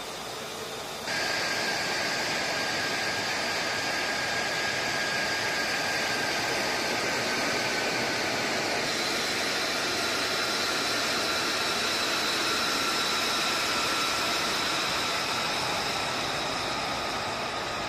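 F-35 Lightning II's jet engine running on the ground: a steady rushing roar with high turbine whines that slowly drop in pitch, getting suddenly louder about a second in.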